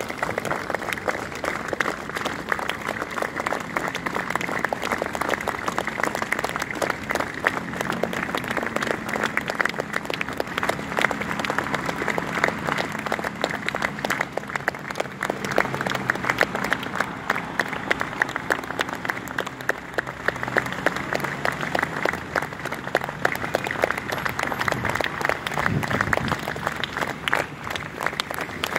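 A roadside crowd clapping steadily and continuously as a line of cars passes, with a faint low engine hum underneath in the middle stretch.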